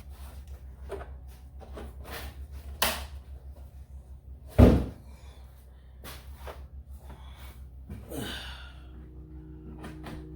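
Scattered clicks and knocks, then a single heavy slam of a Honda Pilot body panel shutting about four and a half seconds in, by far the loudest sound; a steady low rumble runs underneath.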